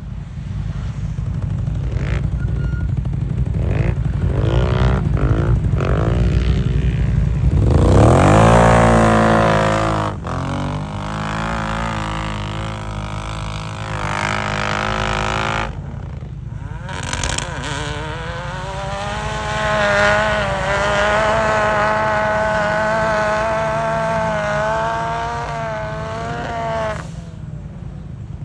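Off-road 4x4 engine revving hard under load: the revs climb steeply, drop back, then rise again and hold high, wavering, for several seconds before easing off near the end.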